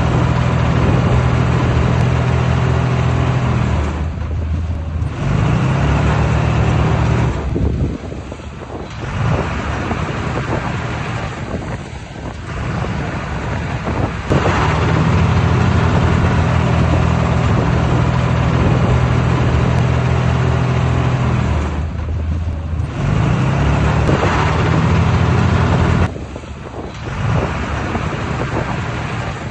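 A bulldozer's diesel engine working under load, a steady low run that eases off briefly several times and then pulls up again.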